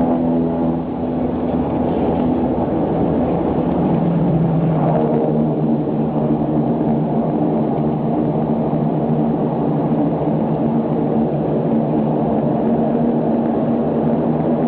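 Aircraft engines running steadily, heard from inside the passenger cabin, with a drone of steady tones over a rushing noise. The engine tones shift in pitch about four to five seconds in.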